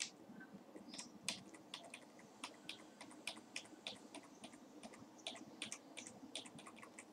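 Faint, irregular tapping on a computer keyboard, about three or four keystrokes a second.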